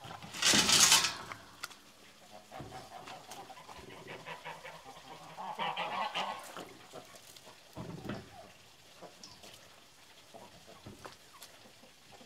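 Geese honking a few times, with a loud clatter about half a second in.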